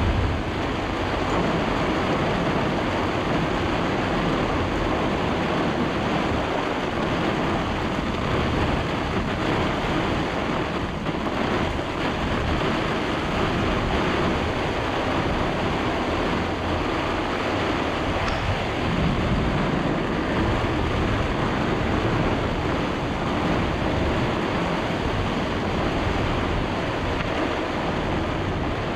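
Microburst storm wind blowing hard across a sailboat's cockpit, buffeting the microphone, with rushing waves, steady throughout.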